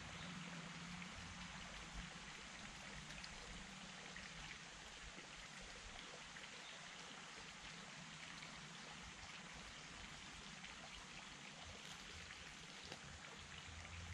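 Faint steady hiss of running water, with a few light ticks.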